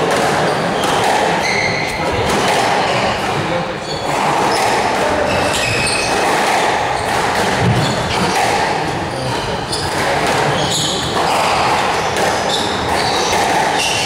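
A squash rally: the ball is struck by rackets and smacks off the walls at irregular intervals, with shoes squeaking on the wooden court floor.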